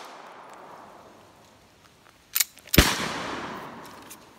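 Semi-automatic pistol fired twice, about half a second apart; the second shot is the louder and its echo rolls off over a second or so. At the start, the echo of the shots just before is still fading.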